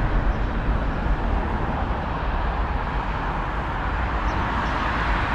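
Steady rumble and rushing noise of a moving vehicle, heavy in the low end and even throughout.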